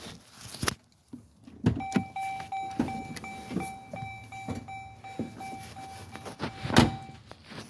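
A car's electronic warning chime sounding a rapid, even string of pulses of one pitch for about five seconds, starting just after a click as the door is opened. Knocks and handling noises run under it, and a loud thump comes shortly before the chime stops.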